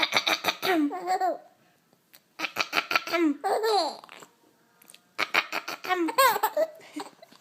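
Baby laughing in three bouts of high, squealing giggles separated by short pauses.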